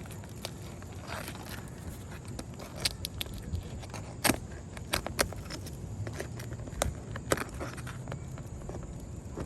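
Roofing work on an asphalt shingle roof: irregular sharp taps, clicks and scrapes from handling shingles and tools. A steady low rumble runs underneath.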